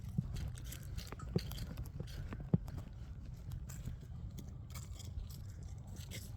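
Footsteps of a person walking along a trail, a light crunch or tap about every half second, over a steady low rumble.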